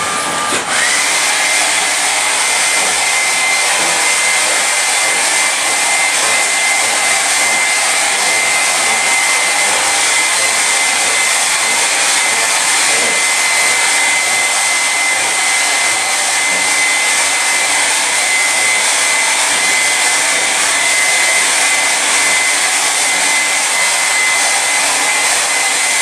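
Hand-held hair dryer running steadily: a rush of blowing air with a thin whine over it. The whine steps up in pitch and the dryer gets a little louder just under a second in, then holds steady.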